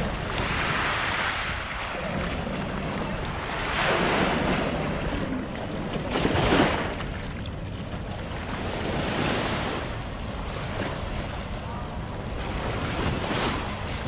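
Small waves breaking and washing up the sand at the water's edge, a surge of hiss every few seconds, with wind rumbling on the microphone.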